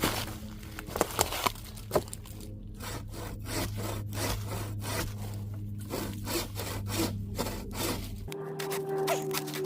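Hand saw cutting through a small log, in quick, even back-and-forth strokes of about three a second after a few knocks as the blade settles in.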